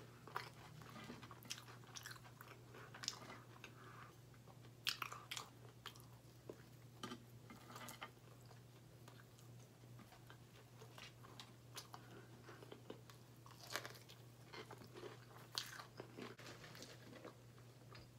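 Close-up eating of crispy fried chicken tenders: the breading is torn apart by hand and chewed, with irregular crisp crunches and chewing sounds.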